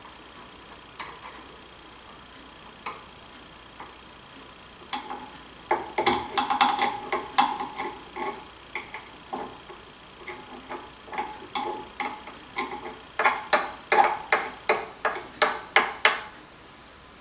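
Sharp clicks and taps from clamps and wooden boards being handled on a workbench: a few scattered ones, a quick flurry about a third of the way in, and a run of loud clicks at about three a second near the end.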